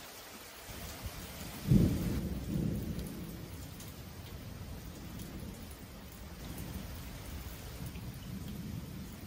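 Thunder: a sudden loud, deep clap about two seconds in, then a rolling rumble that swells again near the end, over steady rain.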